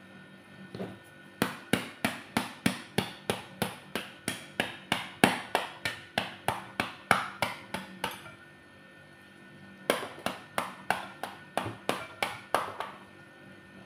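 Metal rod repeatedly striking the rind of a pomegranate half held over a bowl, knocking the seeds out: a quick run of sharp knocks about three a second, a pause of about two seconds, then another run.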